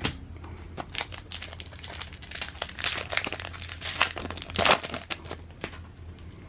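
Plastic wrapper of a Panini NBA Hoops trading card pack being torn open and crinkled: a run of crackling rustles for about five seconds, loudest near the end, then dying away.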